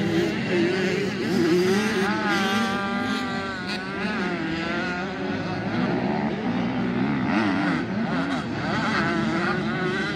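Several motocross dirt bike engines revving, their pitch rising and falling over and over as the riders open and close the throttle and shift gears around the track.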